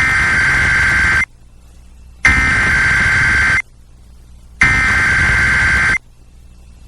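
Emergency Alert System SAME header, the digital data tones that open a new alert, sent as three bursts. Each burst lasts a little over a second, with about a second between them.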